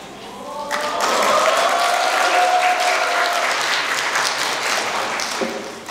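Audience applauding, starting about a second in and dying away near the end, with a long drawn-out cheer from the crowd rising and falling over the clapping.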